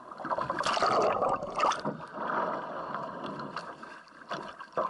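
Water splashing and sloshing heavily around a canoe-polo kayak as it tips over and is rolled back upright by hand, loudest in the first two seconds, then lighter sloshing. A sharp knock near the end.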